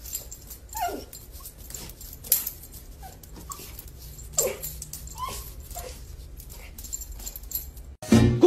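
Small puppy giving a string of short, high yips and whimpers, most falling in pitch, about one a second, with light clicks between them. About half a second before the end the audio cuts to a louder new sound.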